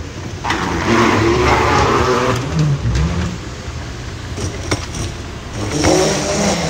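Wheeled suitcases rolling over a hard terminal floor, a rough rumble that swells twice, with a few sharp clicks between, over a steady background hum.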